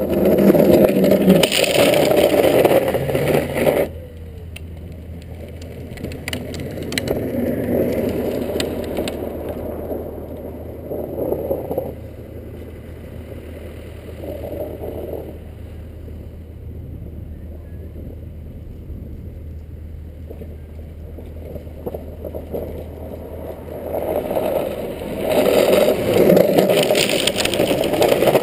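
Drift trike's hard-sleeved rear wheels sliding sideways across asphalt, giving a loud grinding scrape as it drifts close by for the first few seconds and again near the end, and fainter scraping runs in between as it rides further off.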